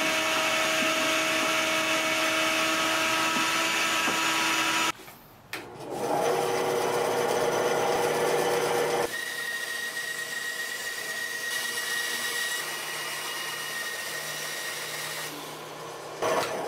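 A shop vacuum and a power tool running steadily, stopping abruptly about five seconds in. Then a benchtop bandsaw runs and cuts ebony, its sound changing and getting quieter about nine seconds in.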